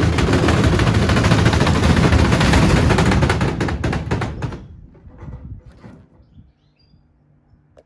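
Whirlpool washing machine spinning with a 6-litre water bottle as an unbalanced load, the drum banging and rattling in a rapid, loud clatter. About four and a half seconds in it winds down and the clatter fades to quiet.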